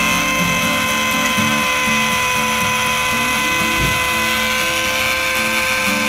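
Small battery-powered DC motor and fan of a homemade cardboard hair dryer running on its cool setting: a steady high whine over an even hiss of blown air.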